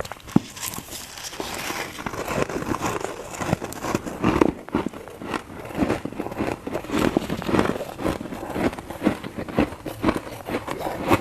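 Humidifier-grown freezer frost being bitten and chewed: a dense, irregular run of crackling crunches.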